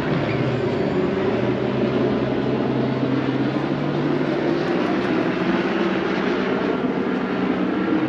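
A steady engine drone with a low hum, over a wash of outdoor noise.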